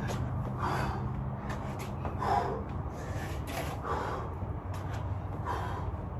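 A man breathing hard from exertion during a workout, with forceful exhales about every second and a half.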